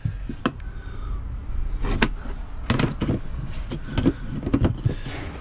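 Round plastic screw-in deck hatch being handled: a series of sharp plastic clicks and knocks as the lid is set back into its ring and twisted shut, over a low steady rumble.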